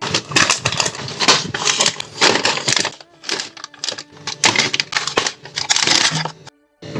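Plastic packaging rustling and crinkling, with many quick clicks and knocks of items and containers being handled. The sound breaks off for a moment near the end.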